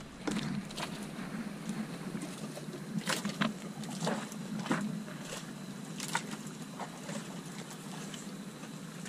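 Sounds aboard a small fishing boat: a steady low hum under irregular sharp taps and knocks, the strongest about three, four and a half and six seconds in.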